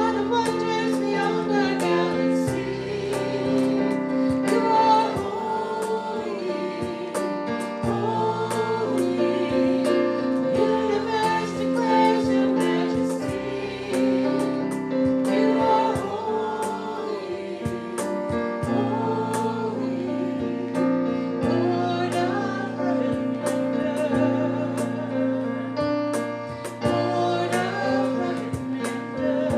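Worship song sung by several voices with instrumental accompaniment, a gospel-style hymn.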